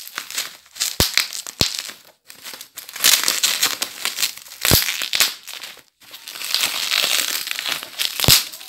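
Bubble-wrap packaging crinkling and rustling as it is handled and pulled open, in spells with brief pauses. A few sharp snaps or knocks stand out: twice in the first two seconds, once near the middle and once near the end.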